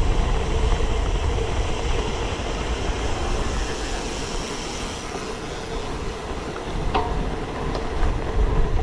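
Wind rushing over a bike-mounted action camera's microphone, with the hum of road tyres, as a road bike rides along. A single sharp click comes about seven seconds in.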